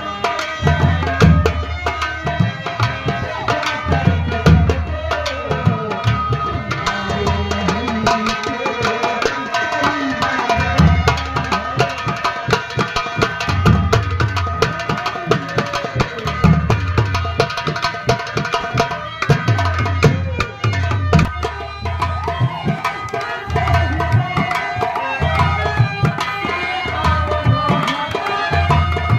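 Nautanki folk-theatre music: rapid hand drumming, with deep strokes recurring in a steady rhythm, under a continuous melody line.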